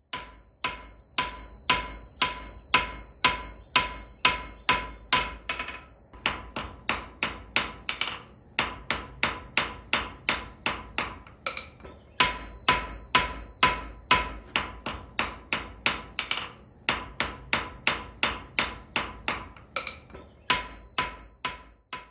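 A blacksmith's hammer striking on an anvil in a steady rhythm, about two blows a second, in runs broken by short pauses. During some runs the anvil rings with clear high tones after each blow.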